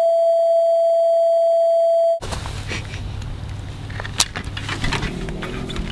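A steady test-card beep at one pitch, cut off sharply about two seconds in. Then outdoor background rumble with a few sharp metallic clicks as a steel cable bike lock is handled on a bicycle.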